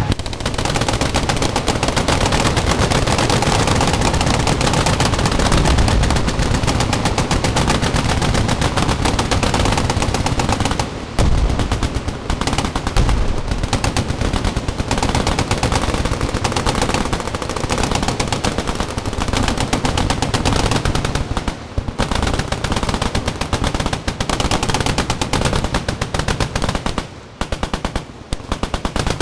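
Many machine guns firing at once in a dense, near-continuous stream of automatic fire. The fire drops out briefly twice and thins to separate bursts near the end.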